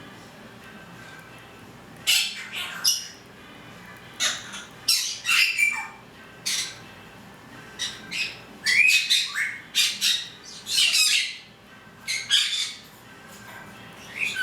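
Pet conure squawking: a string of short squawks in clusters with pauses of a second or two, starting about two seconds in and loudest a little past the middle.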